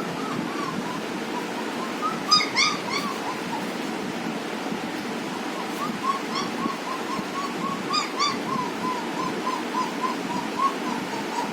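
A puppy whimpering: a long string of short, high whines several a second, with louder yelps about two and a half seconds in and again about eight seconds in, over a steady background hiss.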